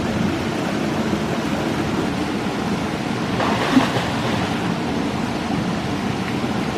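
Waterfall rushing: a steady, even sound of falling water, with one brief knock a little under four seconds in.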